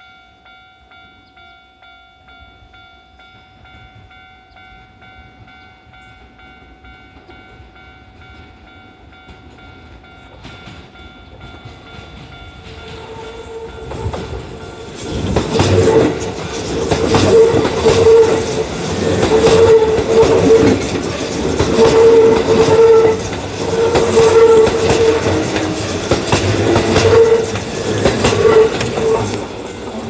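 Level-crossing warning bell ringing with a steady pulsing clang. From about 13 seconds in, a Kintetsu 1233-series and 8600-series express train passes close by. Its wheels clatter loudly over the rails in swelling waves and drown out the bell.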